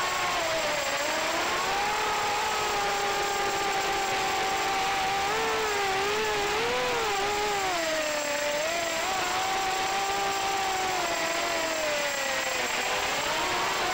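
FPV racing quadcopter's electric motors and propellers whining, the pitch sliding up and down as the throttle changes, with dips about a second in, around eight seconds and near the end, over a steady hiss.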